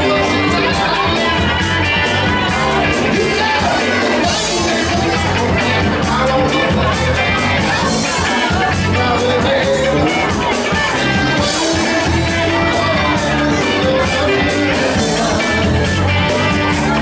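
Live rock band playing through a PA: electric guitar, electric bass and drums keeping a steady beat, with a lead vocal.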